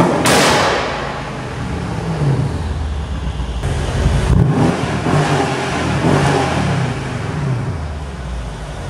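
Mercedes-Benz E63 S AMG's twin-turbo V8 being free-revved through its exhaust, engine speed rising and falling in a series of blips. It opens with one sharp bang that rings out.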